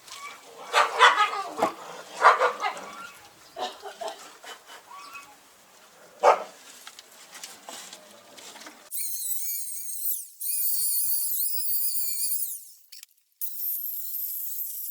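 A dog barking and yipping several times, the loudest calls about one, two and six seconds in. From about nine seconds on, only a high, wavering pitched sound is left, with all the low sound gone.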